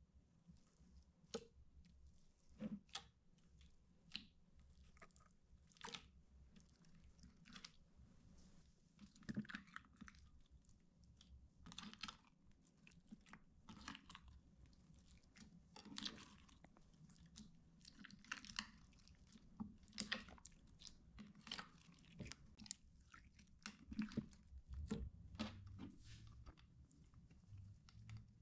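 Water slime being handled and squished, giving faint, irregular sticky crackles and squelches about once a second.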